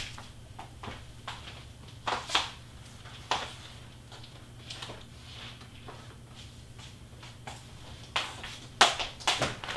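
Scattered light clicks and rustles of someone moving about and handling large sheets of cardstock and foam board, with a cluster of louder rustles and knocks near the end.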